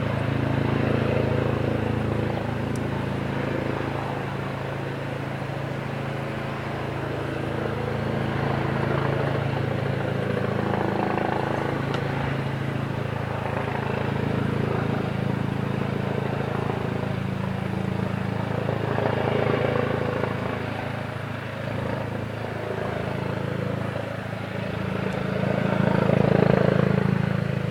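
Police helicopter hovering: a steady low drone of rotor and engine that swells and fades, loudest shortly before the end.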